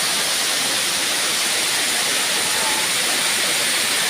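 Waterfall pouring down: a steady rush of falling water.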